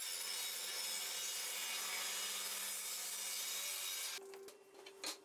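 Table saw blade cutting through a wooden board: a steady, hissing cut with a faint motor hum for about four seconds, starting suddenly. Near the end the cut falls away and a single sharp click is heard.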